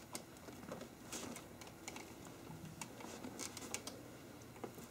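Faint, irregular clicks and light rustles from a cat climbing about on a metal-pole cat tree with fabric platforms.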